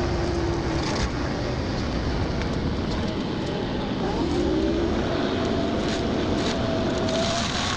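Excavator running a forestry mulcher head: a steady machine drone with a faint whine that shifts slowly in pitch, and a few scattered sharp ticks.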